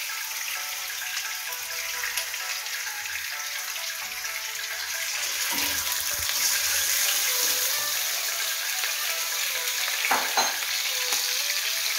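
Raw chicken pieces sizzling as they fry in hot oil in a karahi, the sizzle a little louder after they are stirred halfway through. A metal spatula knocks and scrapes against the pan about halfway through and again near the end.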